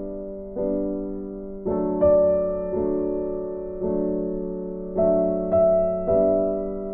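Slow, gentle piano music: sustained chords struck about once a second, each left to ring and fade.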